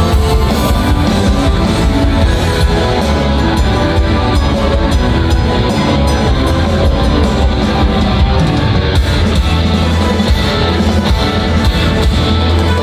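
Live progressive metal band playing loud and steady through a concert PA: distorted electric guitars, bass guitar, keyboards and a large drum kit.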